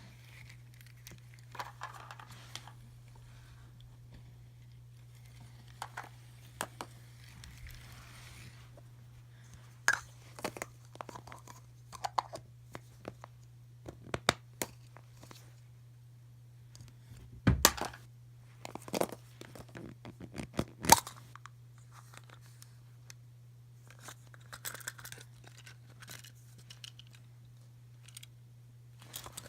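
Hands unwrapping and opening toy packaging: scattered crinkling, tearing and sharp plastic clicks, the loudest snaps about 17 and 21 seconds in, over a steady low hum.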